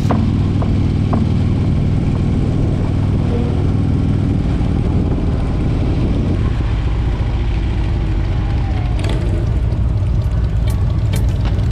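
Harley-Davidson V-twin motorcycle engine running steadily at cruising speed, heard from the saddle with wind rushing past. A drum beat comes back in faintly near the end.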